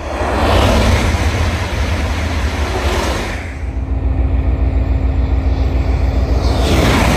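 High-speed trains rushing past at speed: a Renfe Avlo train sweeping by in the first three seconds, then, after a break, the rising rush of an approaching Iryo Frecciarossa 1000 swelling again near the end.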